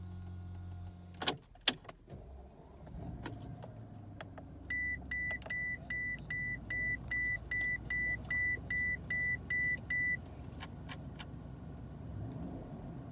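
Mercedes S600 seatbelt reminder chime heard inside the cabin: about a dozen high beeps, roughly two a second, lasting about five seconds. Underneath is the low idle of the car's twin-turbo V12. About a second in, two sharp clicks are the loudest sounds.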